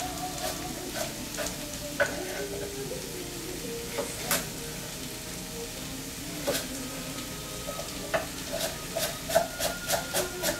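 Kitchen knife chopping vegetables on a wooden cutting board: scattered single chops, then a quick run of chops, about four a second, near the end. Faint steady tones sit underneath.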